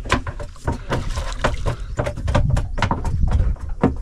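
Freshly caught red-bellied piranhas flapping against the bottom of a boat: a dense, irregular clatter of knocks and slaps.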